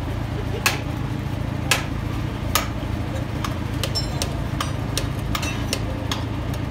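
Sharp metallic taps and clicks as a heavy truck differential carrier and ring gear assembly is worked into place by hand. They come about once a second at first, then quicker in the second half, and a couple ring briefly. A steady low hum runs underneath.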